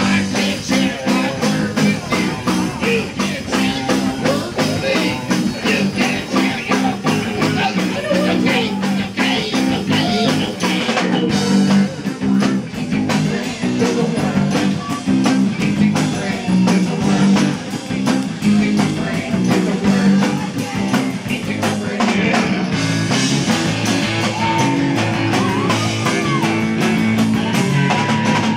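Live rock band playing, with electric guitars and a drum kit keeping a steady beat.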